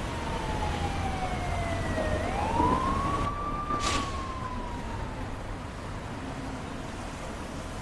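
Ambulance siren wailing: its pitch slides down, sweeps back up about two seconds in, then falls slowly again, over a low traffic rumble.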